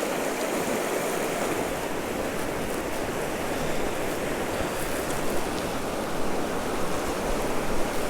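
Creek water rushing steadily, the stream running high and murky with spring snowmelt.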